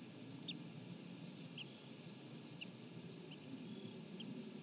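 Bald eagle chick giving faint, high, falling begging peeps, about one a second, while being fed. Underneath runs a steady, evenly spaced series of fainter high peeps.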